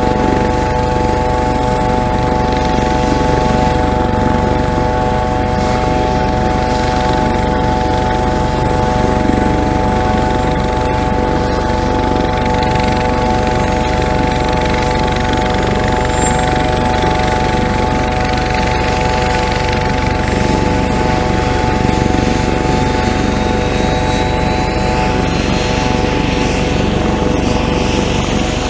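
Helicopter running steadily: a constant rotor rumble under a steady whine of several tones.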